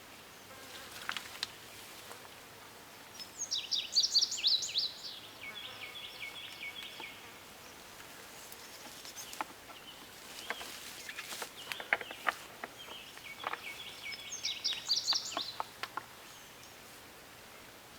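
A songbird sings twice, each song a burst of quick high notes running into a buzzy trill. Between the songs come scattered rustles and sharp clicks.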